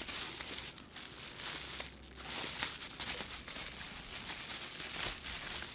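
Plastic bubble wrap crinkling and rustling in irregular bursts as it is handled and unwrapped by hand.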